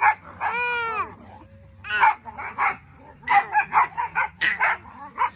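A dog barking and yipping in quick runs of short barks, with one longer whining call that rises and falls about half a second in.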